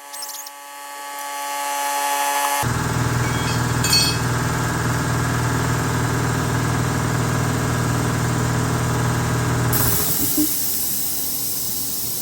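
A power tool runs steadily to clean a golf cart wheel rim. It cuts in sharply a couple of seconds in, runs for about seven seconds, then gives way to a quieter, even noise near the end.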